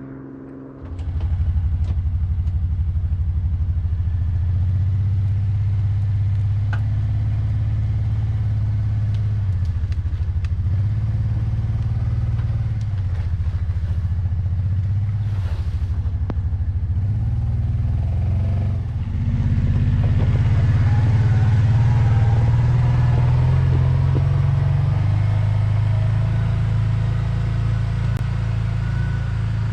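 Big two-stroke Stihl chainsaw running at high throttle in an Alaskan chainsaw mill, ripping a spruce log lengthwise into boards. The engine note dips briefly a few times as the saw takes load.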